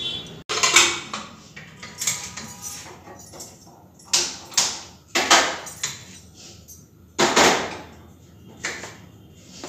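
Steel pots, lids and utensils being handled on a kitchen counter and gas stove: a string of sharp clanks and clatters, some with a brief metallic ring.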